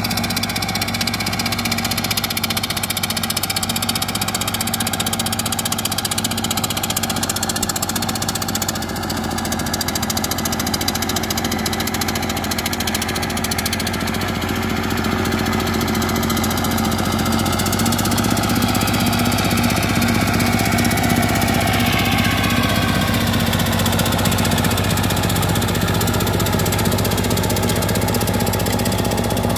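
Single-cylinder diesel engine of a two-wheel walking tractor running steadily under load while its rotary tiller churns a flooded rice paddy. The engine note rises in pitch a little about two-thirds of the way through.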